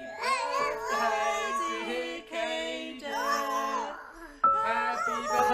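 A man and a small child singing a birthday song together in short phrases of held notes, the child's voice above the man's.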